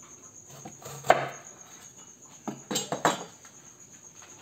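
A few knocks and clinks of kitchen utensils and dishes, one about a second in and a quick cluster near three seconds, over crickets chirping steadily.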